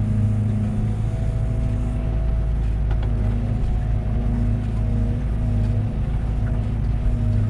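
Liebherr 914 Compact wheeled excavator's diesel engine running steadily at working speed, its pitch wavering only slightly.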